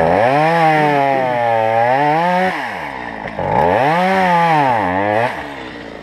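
Two-stroke chainsaw engine revved to high speed in two bursts, the first about two and a half seconds long and the second a little shorter, with the pitch sagging and recovering within each burst. It drops back to idle about five seconds in.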